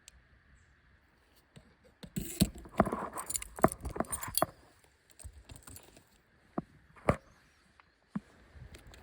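Small metal camping gear jangling and clinking together in a quick flurry for about two and a half seconds, followed by a few single clinks.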